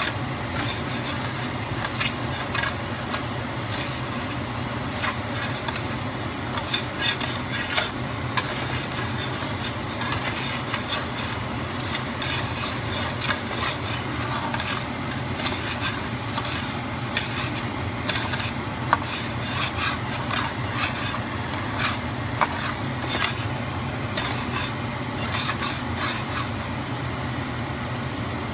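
Raw glutinous rice being dry-roasted in a wok, stirred and turned with a spatula: a continuous scraping rustle of grains sliding and ticking against the pan, dense with small clicks, over a steady low hum. This is the toasting stage of making khao khua, roasted rice powder.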